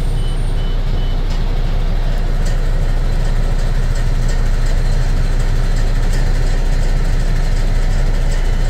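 MAN TGX 18.480's 12.4-litre straight-six diesel idling steadily just after a start, heard from inside the cab. Three short high beeps from the dashboard warning buzzer sound in the first second or so.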